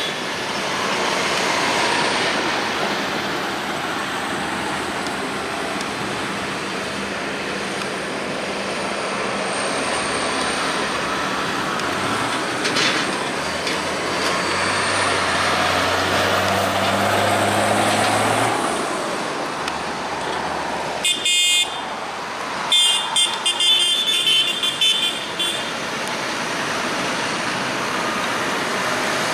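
Large farm tractors driving past one after another, their diesel engines running and tyres rolling on tarmac. About two-thirds of the way through, a vehicle horn sounds: one toot, then a string of short toots.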